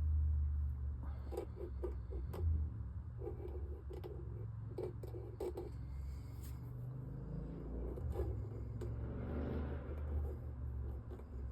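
Cocktail stick scratching and scraping short strokes into acrylic paint, a run of small scratches and taps, over a low steady rumble.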